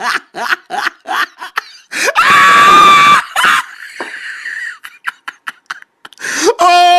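A person laughing in quick bursts, then a high-pitched shriek lasting about a second, and a loud, steady yell near the end.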